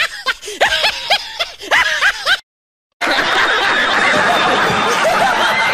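A high-pitched snickering laugh in short repeated bursts that cuts off abruptly about two and a half seconds in. After a half-second gap, a studio audience laughs and cheers together.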